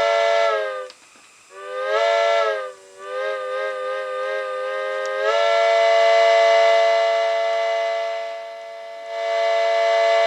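Electronic steam-locomotive whistle from an MRC Tech II Model 8000 model train sound generator, played through its speaker: a multi-note chime whistle with a breathy hiss. It sounds in several blasts, a couple of short ones and a wavering run, then a long blast of about four seconds, each sagging in pitch as it cuts off.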